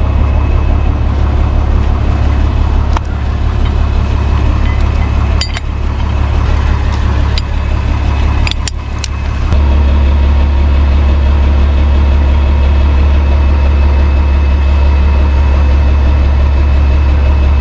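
Truck engine idling steadily, with a few sharp metallic clicks in the first half. About halfway through, the engine note steps up and runs louder.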